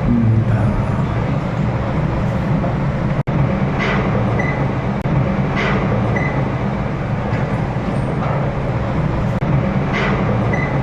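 Storm wind buffeting the microphone: a loud, steady, low rumbling noise that cuts out for an instant about three seconds in.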